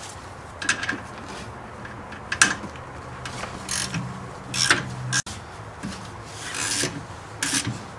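Hand ratchet and socket working a rear brake caliper slide-pin bolt: about half a dozen short scraping, rasping strokes with small metal clicks, spread through the few seconds.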